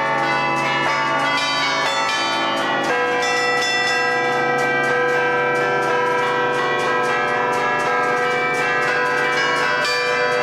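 A set of twelve church tower bells played from a baton keyboard in the Lombard 'suono d'allegrezza' style. The player's fists on the levers pull the clappers against the hanging bells. Quick strokes make a festive, band-style melody, the notes ringing on over one another without a break.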